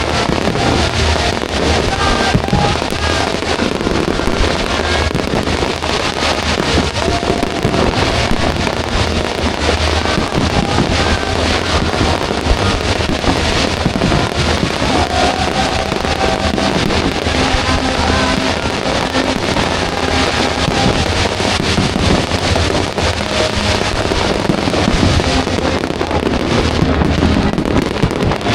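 Fireworks display: dense, continuous crackling and popping of fireworks, with music playing alongside.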